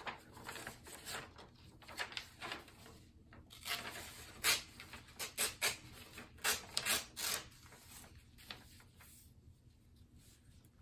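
Hands handling craft materials at a table: a scattered series of light clicks, taps and scrapes that thins out over the last few seconds.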